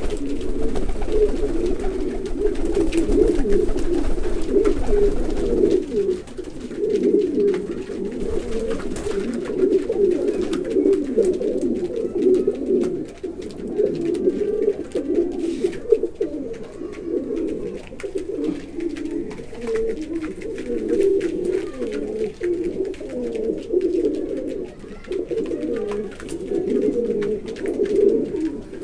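A flock of pouter pigeons cooing all at once: a dense, continuous chorus of overlapping low coos, with a low rumble underneath for the first six seconds or so.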